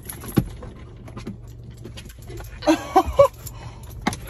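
A dog whining in a few short, high cries about three seconds in, over light rustling.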